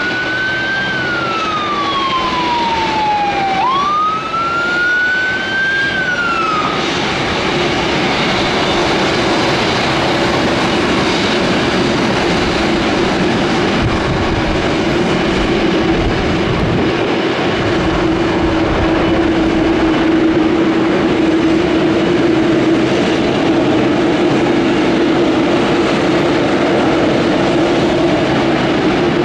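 Boeing 747-8's four GEnx turbofans running at taxi power: a steady jet roar, with a droning hum that grows stronger from about seven seconds in. In the first few seconds a siren wails, its pitch falling slowly and then sweeping back up.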